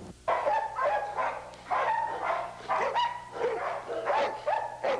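Bouvier des Flandres barking repeatedly, about two to three short barks a second.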